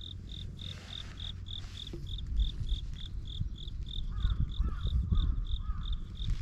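An insect chirping steadily in the grass, a short high pulse repeated about three times a second. About two-thirds through come four short, higher-pitched arched chirps, with an uneven low rumble underneath.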